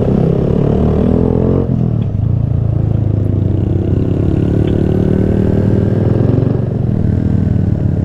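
Honda Grom's 125 cc single-cylinder four-stroke engine running as the motorcycle rides along. The engine note drops about a second and a half in, then holds steady.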